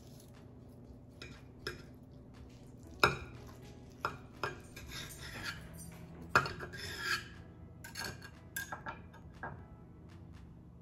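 A table knife and other cutlery clinking and scraping against a pan and dishes while cooked meatloaf is cut: a series of separate sharp knocks, the loudest about three and six and a half seconds in, with scraping between them.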